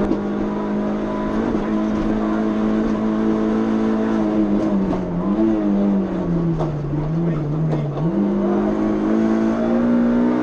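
Suzuki Swift PS16 rally car's four-cylinder engine, heard from inside the cabin, running hard at steady high revs; the revs dip about five seconds in, fall lower between six and eight seconds in, then climb back up.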